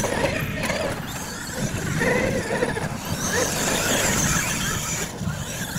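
Radio-controlled solid-axle monster truck driven hard on loose dirt: a whining drivetrain with its big tyres spinning and spraying dirt.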